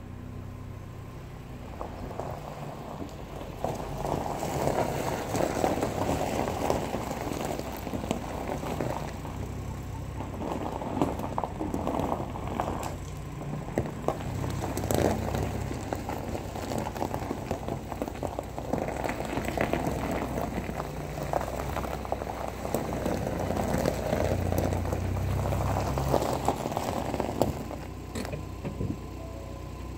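Volkswagen T25 Transporter engine idling after a cold start, a steady low running note. Over it is a dense crackling noise that builds a few seconds in and dies down near the end.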